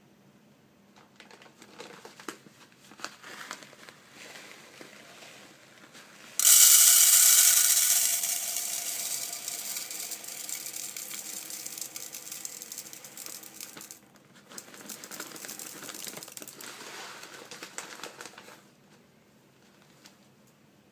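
Clicks and rattling as a plastic food container and rice are handled. Then, about six seconds in, a sudden hissing rush like water running into the container, fading over several seconds; a quieter second rush follows later.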